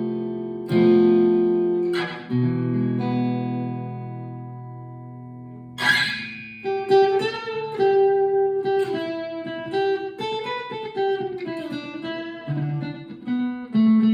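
Fender California Malibu acoustic guitar played through a Harley Benton Tube 15 valve amp with the reverb on. Two strummed chords are left to ring out, then another chord comes about six seconds in, followed by a picked single-note melody with a few sliding notes.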